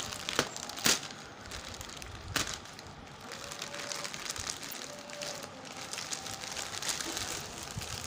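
Plastic courier mailer bag being torn open and crinkled by hand: a few sharp rips in the first two and a half seconds, then steady rustling and crinkling of the plastic.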